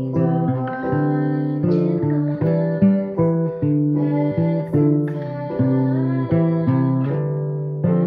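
Acoustic guitar picking a steady run of notes, each plucked note ringing and fading as the next comes in about every half second.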